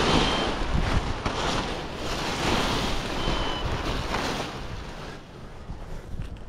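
Wind buffeting the microphone in gusts, easing off after about five seconds, with two short faint electronic beeps, one at the start and one about three seconds in.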